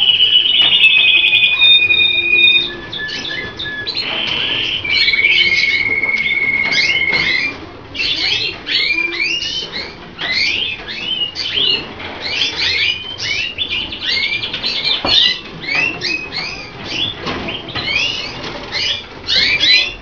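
Colour canaries singing: rapid trilled rolls and long held whistled notes for the first several seconds, then a fast run of short chirping notes.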